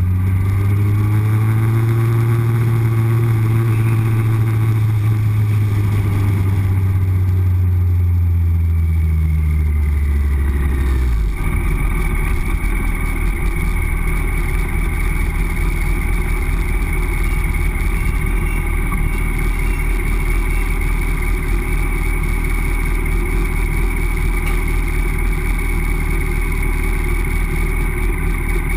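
Yamaha R1's inline-four motorcycle engine heard from the bike's onboard camera. The engine note rises, then slowly falls over the first ten seconds or so. About eleven seconds in it drops to a steady low idle rumble as the bike slows and stops at a crosswalk.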